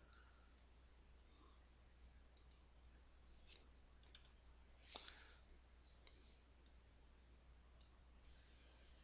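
Near silence: a faint steady low hum with about ten scattered, faint clicks of a computer mouse. The clearest click comes about five seconds in.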